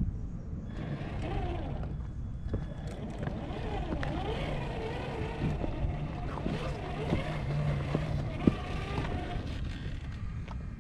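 Radio-controlled car motor whining, its pitch rising and falling again and again as the car speeds up and slows, with wind on the microphone and a sharp knock near the end.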